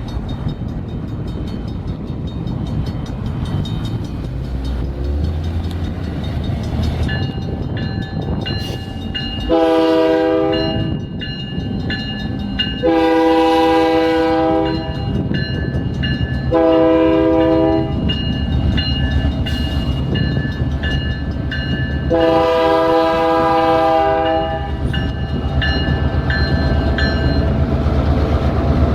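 Ontario Northland Railway diesel locomotive sounding its multi-chime air horn in four blasts, the third one short, in the pattern of a grade crossing signal, over the low rumble of its engine. A bell rings through most of it, and the engine grows louder near the end as the train comes close.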